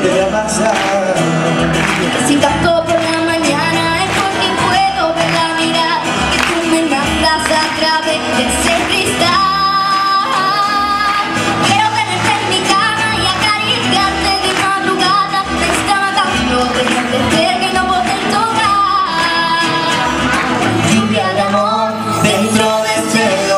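Two acoustic guitars strummed live while a boy sings into a handheld microphone.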